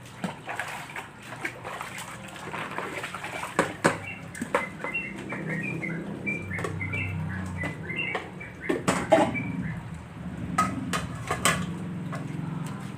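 Scattered clicks and knocks of kitchen utensils, with a small bird chirping in quick short notes for a few seconds midway, over a low steady hum.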